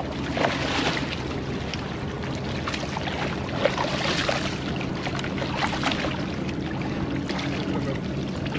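A hooked red drum thrashing and splashing in shallow water against the rocks, the splashing heaviest around the middle, over steady wind on the microphone and a low hum.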